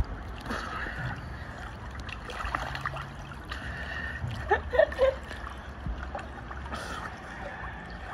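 Pool water splashing and lapping around a swimmer paddling slowly along with a small monkey on her back. Two brief, higher sounds come about halfway through.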